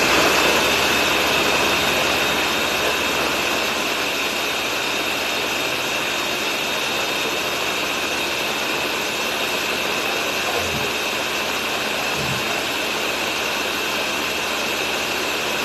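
Countertop blender motor running steadily, chopping a load of onions, ginger, garlic and habanero peppers into a paste: a continuous whir with a high whine on top.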